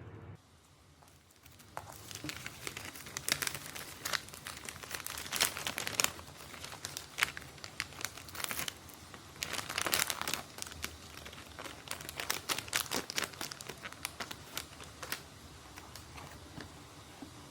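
Packaging being handled and opened by hand: irregular crinkling and rustling with some tearing, starting about two seconds in and busiest around the middle.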